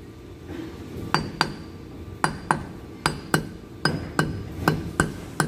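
Brake drum on the front hub of an Isuzu 4HG1 truck turned by hand, giving sharp metallic clinks that come as quick doubles about once a second. The drum and hub spin freely, a sign that the wheel bearing is snug but not over-tightened.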